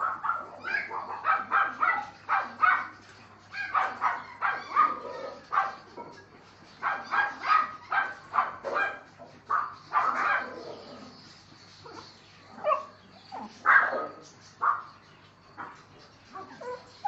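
Dogs barking over and over in quick runs of short barks, thinning out after about twelve seconds.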